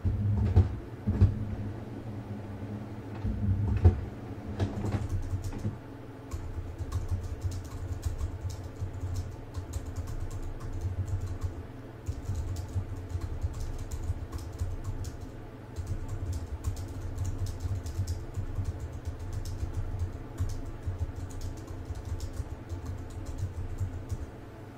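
Typing on a computer keyboard: a steady run of quick key clicks, with a few louder thumps in the first four seconds.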